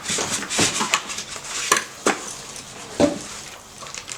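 Packaging and accessories from a new sewing machine's box being handled: rustling, with four sharp knocks and clatters about a second apart.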